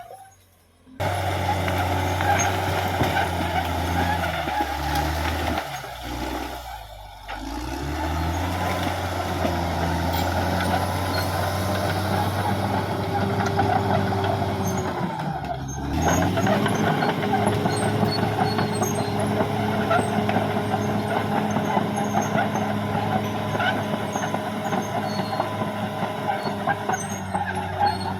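Caterpillar D6R XL bulldozer's diesel engine running hard, starting about a second in. Its pitch dips and climbs back twice, around six seconds in and around fifteen seconds in, as the revs fall and pick up again.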